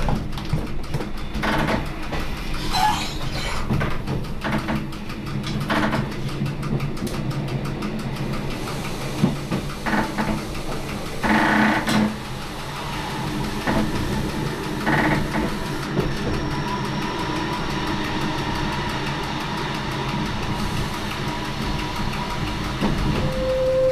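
Inside the cab of a Rhaetian Railway metre-gauge electric motor coach running downhill: steady motor and rail noise with knocks and clatter from the track. A steady whine comes in about two-thirds of the way through, and the train's horn starts to sound at the very end.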